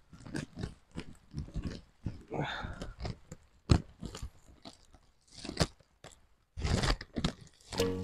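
Footsteps crunching irregularly on a wet dirt trail, a few steps a second, with a short pause shortly before six seconds in.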